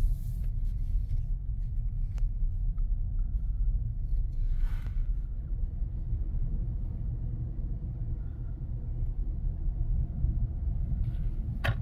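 Steady low rumble of a car driving, heard from inside the cabin, with a short hiss about halfway through and a few light clicks near the end.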